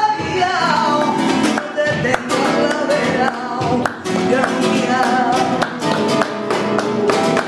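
Flamenco acoustic guitar strummed with sharp rhythmic chords, with a voice singing a bending, ornamented line over it, in the style of a bulería.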